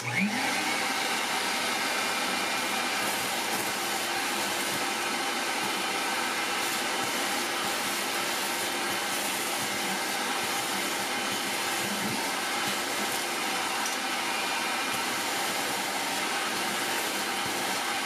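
Vacmaster VQ607SFD wet/dry shop vacuum, with a 3-peak-horsepower motor, starting up with a brief rising whine and then running steadily, drawing air through its hose as the nozzle is worked along a concrete floor.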